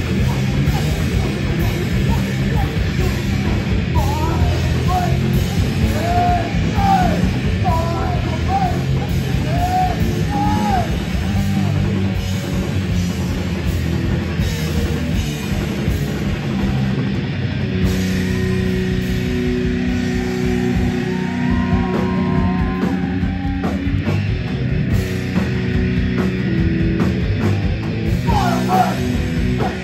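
A crossover thrash band playing live and loud: distorted electric guitar, bass and fast drum kit, with shouted vocals coming in and out. From about the middle the guitars hold long chords under the drumming.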